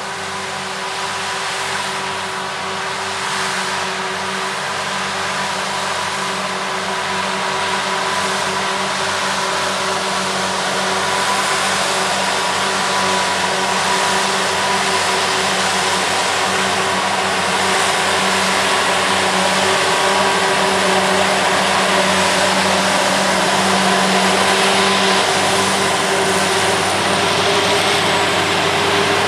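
Self-propelled forage harvester chopping a standing cereal crop for whole-crop silage: its engine and chopping gear run with a steady hum and whine over a broad rushing noise. It grows louder as the machine comes closer, and the tractor towing the trailer alongside runs with it.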